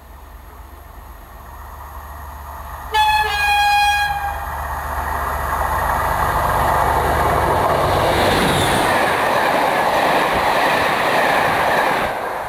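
Class 37 diesel locomotive, with its English Electric V12 engine, approaching and growing louder. It sounds its horn for about a second, three seconds in, then passes close by with its coaches' wheels running over the rails.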